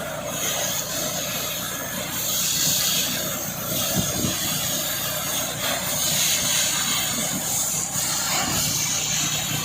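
Water rushing out in a strong flow, a steady loud hissing rush.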